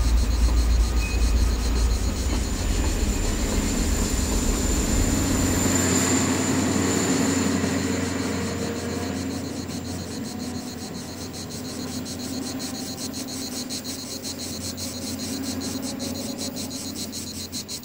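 Diesel TER regional passenger train passing: a heavy low rumble with wheel-and-rail noise, loudest over the first few seconds, with a brief high squeal about six seconds in, then fading steadily as the train moves away.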